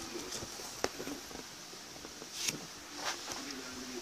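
Cardboard model-kit box being handled: a few light clicks and a short scrape, over a faint steady hum.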